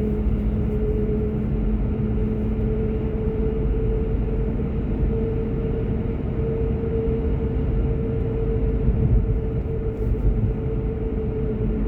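Car driving, heard from inside the cabin: a steady low road rumble with a constant two-note hum over it.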